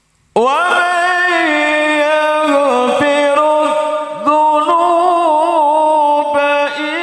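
A man reciting the Quran in the melodic tilawah style. His voice comes in abruptly and holds long drawn-out notes, decorated with wavering turns, with short breaks for breath.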